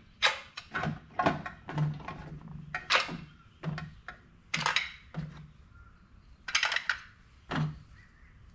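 Reloaded shotgun shells being set one by one into a shell holder: well over a dozen short clicks and light knocks at uneven intervals.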